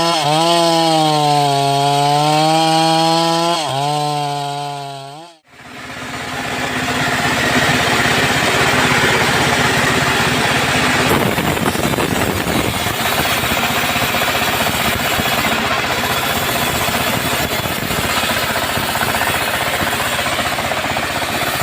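Long-bar chainsaw (gergaji selendang) sawing teak. For about five seconds its engine note wavers up and down as the chain loads in the cut. It then cuts off abruptly and comes back as a steady, dense sawing noise.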